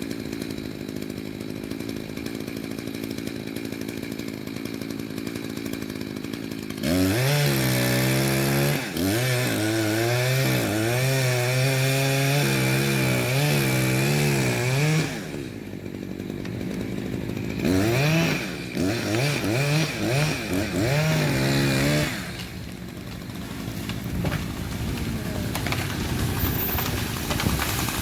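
Echo CS-590 Timber Wolf two-stroke chainsaw idling, then opened to full throttle about seven seconds in and held there for about eight seconds, its pitch wavering as the chain works in wood. It drops back, is revved in a run of short blips for a few seconds, then settles back to idle.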